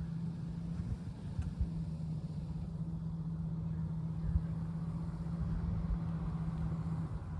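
1978 Chevrolet C30 dually pickup approaching at low speed, its engine a steady low drone that drops away about seven seconds in.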